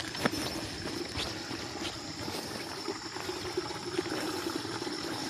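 Water trickling steadily along a small ditch beside the path, with footsteps on the dirt path making short sharp ticks about once a second.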